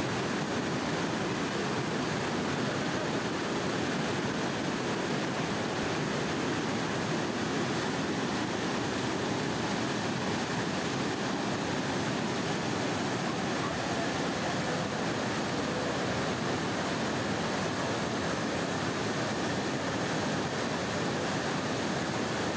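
Rain-swollen waterfall and torrent rushing over a stone weir: a steady, unbroken rush of water.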